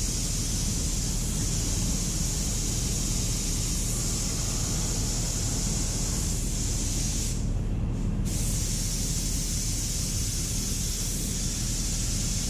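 Air spray paint gun spraying paint onto truck frame rails: a steady high hiss that stops for just under a second about seven and a half seconds in as the trigger is let off, then resumes. A steady low hum runs underneath.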